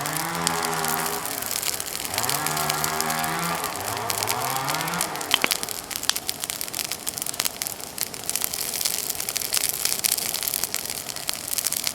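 Bonfire of felled persimmon wood crackling steadily, with three long, low, moo-like calls in the first five seconds, the last one rising in pitch.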